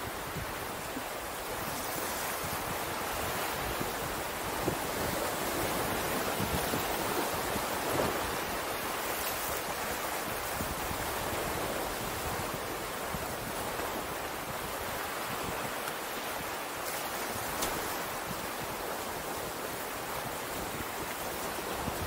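Ocean surf, a steady wash of waves breaking on the shore that swells and eases gently, with light wind buffeting the microphone now and then.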